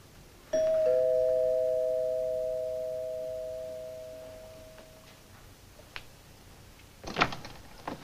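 Two-tone doorbell chime: a higher note and then a lower one, both ringing out slowly over about four seconds. A few clicks and knocks follow near the end.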